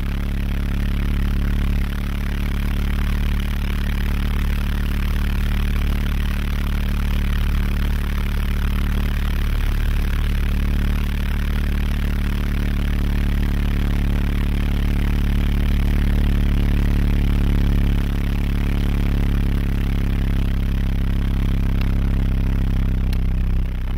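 Beechcraft King Air's twin PT6A turboprop engines and propellers heard inside the cockpit: a steady, loud low drone with a propeller hum, as the aircraft descends to land.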